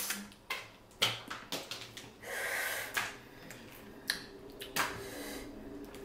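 Close-miked eating sounds: hard shellfish shells being cracked and snapped apart by hand, a series of sharp cracks with the loudest about a second in, and a longer hiss about two seconds in.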